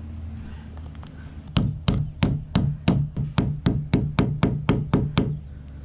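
Claw hammer tapping a lag screw into a wooden timber: a quick, even run of about fourteen blows, roughly four a second, starting about a second and a half in.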